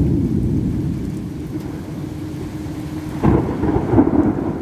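Thunder rumbling low and continuous over rain. About three seconds in, a sudden, louder peal from a nearby lightning strike breaks in.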